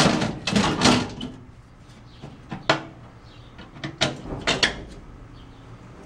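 Aluminium diamond-plate floor panel clattering as it is settled into place, then a few sharp metallic clicks as its freshly lubricated Dzus quarter-turn fasteners are turned and seated.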